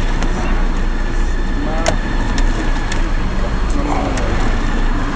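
Steady Peugeot car cabin noise from the engine and road, with a few light clicks and knocks from handling inside the cabin.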